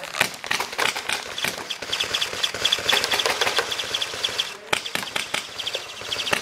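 Paintball markers firing rapid, uneven strings of shots, a dense run of sharp pops.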